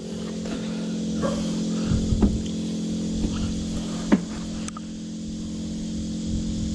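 Small electric pump humming steadily, keeping water moving for a caught fish in a live well, with a few knocks against it.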